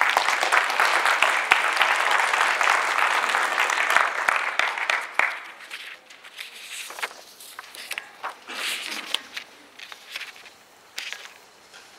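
Audience applauding: a dense burst of clapping that starts abruptly, holds for about five seconds, then dies away into a few scattered claps and small noises.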